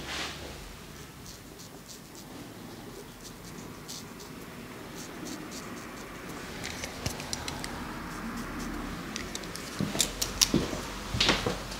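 Straight razor scraping in short strokes over a freshly shaved scalp, heard as faint crackly ticks. From about ten seconds in, a few louder clicks and knocks as things are handled.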